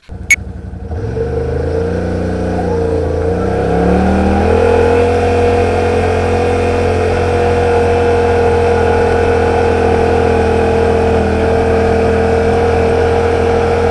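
Yamaha RMAX 1000 side-by-side's engine running under way. A sharp click comes near the start, then the engine note rises and falls over the first few seconds before settling into a steady drone.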